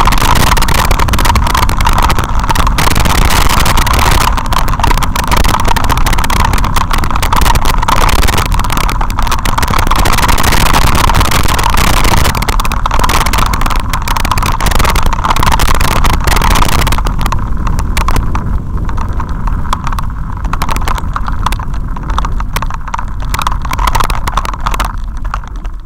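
Loud continuous rattling and rush of wind from a shaking, vehicle-mounted camera riding down a rough gravel track. The hiss and clatter ease off about two-thirds of the way through.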